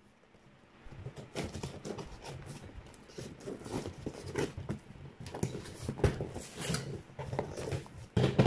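Scissor blade slitting the packing tape along a cardboard box's seam: a run of crackling, scratchy scrapes. Near the end comes a louder rustle of cardboard as the box flaps are pulled open.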